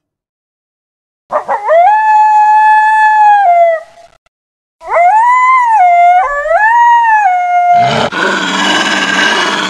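Two long canine howls: the first rises into a steady held note and falls away at its end, the second wavers up and down. They are followed by about two seconds of rough, noisy rasp near the end.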